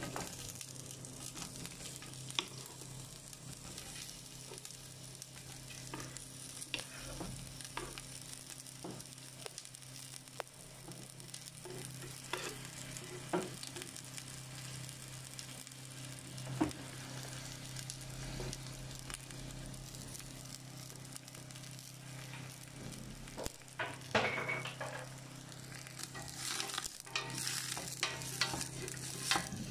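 Sliced onions frying in olive oil in a stainless steel pot: a steady sizzle with scattered pops, the freshly added onions starting to soften. Near the end a wooden spoon stirs them around the pot.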